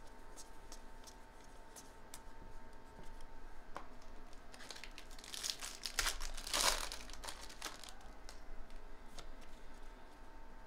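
Baseball trading cards flicked through in the hand, with light ticks, then about halfway through a foil card-pack wrapper crinkling as it is torn open. The wrapper is the loudest part and lasts a few seconds.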